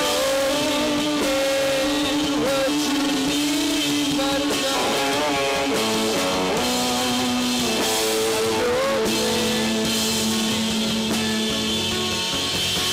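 Live rock band playing: electric guitar, bass and drums, with long held notes that bend in pitch now and then.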